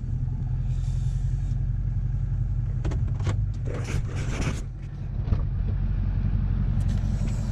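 Car running, heard from inside the cabin as a steady low hum, with a few faint brief rustles or knocks around the middle.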